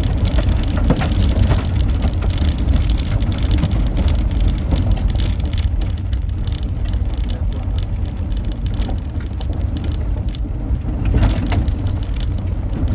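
Car driving on a rough gravel dirt track, heard from inside the cabin: a steady low rumble of engine and tyres, with many scattered small ticks on the body.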